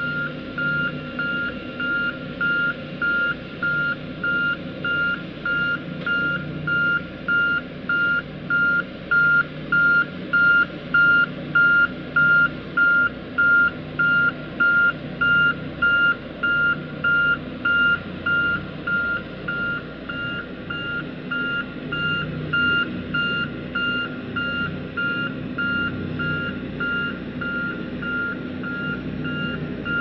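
Backup alarm of a Sakai SV525D vibratory roller beeping steadily while reversing, about three beeps every two seconds, over the machine's diesel engine running. The beeps grow louder toward the middle as the roller comes nearer, then ease off again.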